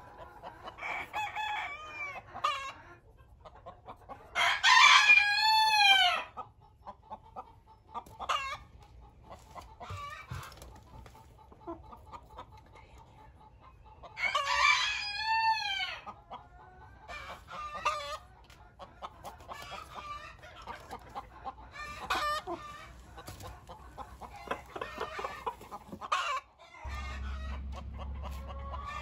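Backyard chickens: a rooster crows twice, each crow about two seconds long and ten seconds apart, with hens clucking between the crows.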